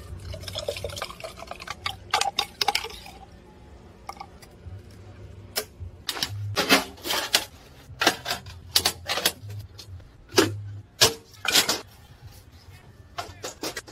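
Lime juice trickling and dripping into a glass jar, then an irregular run of sharp knocks and clicks.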